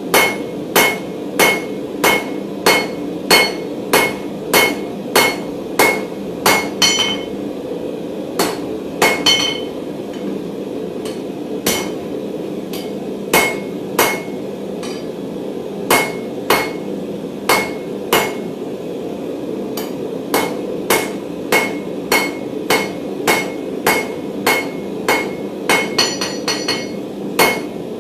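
Hand hammer striking hot mild steel bar on an anvil, about one and a half blows a second with a short ring on each, squaring off round stock. The hammering thins to a few scattered blows partway through, then resumes at the same pace over a steady low roar.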